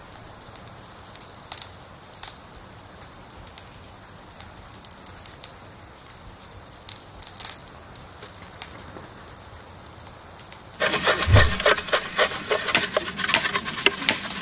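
Faint background with scattered light crackles and ticks. About ten seconds in, loud rapid scratching starts: a brush scrubbing an aluminium mess tin in a bucket of soapy water.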